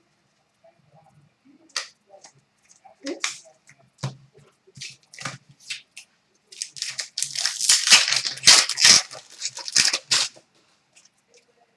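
Hockey card pack wrappers being torn open and crinkled by hand, in irregular crackles that grow busy about six and a half seconds in and die away shortly before the end.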